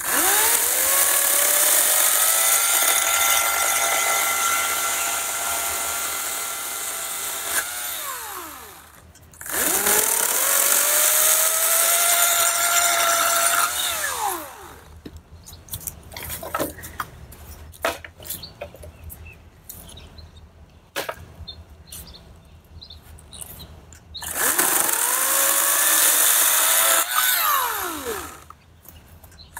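EGO 56-volt cordless 14-inch chainsaw's electric motor spinning up with a rising whine, cutting through wood, then winding down, three times over. Between the second and third cuts there is a quieter stretch of scattered knocks and clicks.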